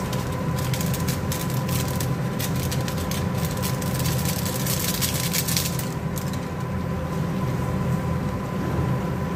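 Chicken and vegetables sizzling and crackling in a pot on a gas stove, the crackle thickest in the middle, over a steady low hum.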